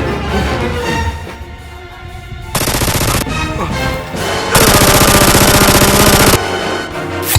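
Background music with bursts of rapid, machine-gun-style gunfire sound effects. There is a short burst about two and a half seconds in, then a longer, louder burst of about two seconds past the middle.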